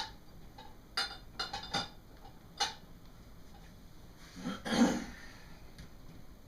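Dishes, glass and cutlery clinking as they are handled and set into a dishwasher rack: several short clinks in the first three seconds. About four and a half seconds in comes a louder, longer burst of sound.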